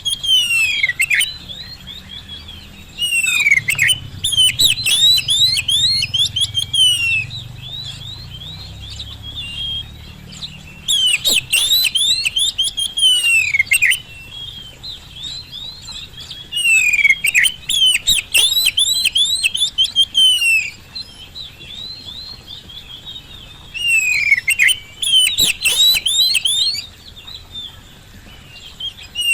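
Oriental magpie-robin (kacer) in full 'gacor' song: rapid runs of sharp, down-slurred whistles in loud bursts of three to four seconds, with short pauses between them.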